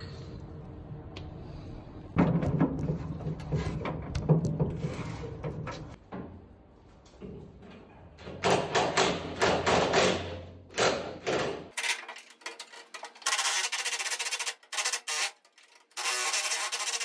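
Hand ratchet clicking in quick runs on rusted fender bolts, with knocks and scrapes of the wrench against the sheet metal. The clicking is densest in the last few seconds.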